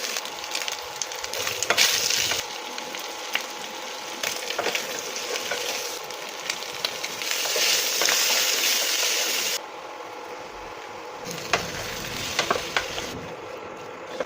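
Chicken frying in hot oil in a pan, a steady sizzle with scattered sharp clicks of a spoon stirring against the pan. The sizzle changes level abruptly a few times and drops noticeably about ten seconds in.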